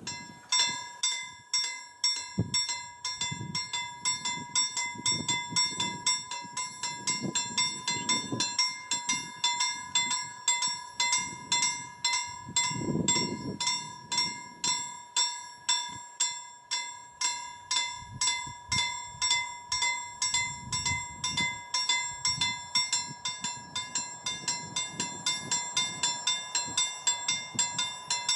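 Railway level crossing warning bell starts up and rings, struck evenly about twice a second with a clear ringing tone: the crossing's signal that a train is approaching.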